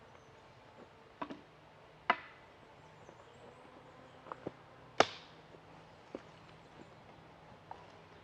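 Fiskars Isocore splitting maul striking a knotty firewood round. There are two heavy blows, about two and five seconds in, with smaller knocks of wood around them.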